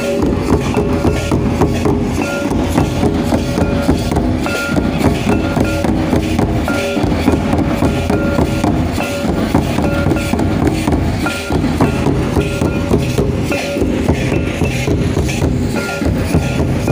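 Large rope-laced, hide-headed kettle drums beaten fast and hard with sticks in a folk drum ensemble, a dense, steady rhythm. A short high note recurs about once a second over the drumming.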